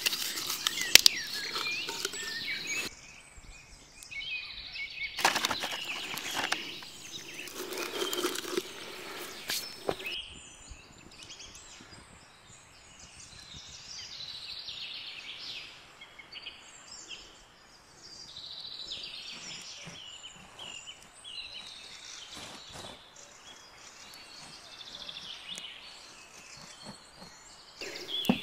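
Outdoor ambience with small birds chirping, clearest in the second half. The first ten seconds hold stretches of rustling, crackling noise.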